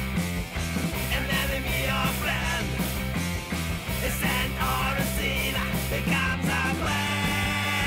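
A rock song with electric guitars, drums and a lead vocal singing the lyrics, over a steady drum beat.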